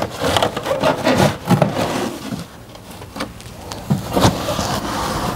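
Loose items being rummaged through and handled in a car: irregular knocks and clatter with rubbing and scraping in between.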